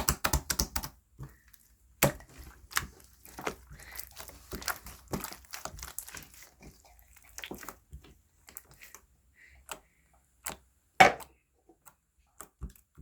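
Slime being squished and stretched by hand, giving irregular sticky clicks, pops and crackles, some in quick runs, with one sharp louder pop about eleven seconds in.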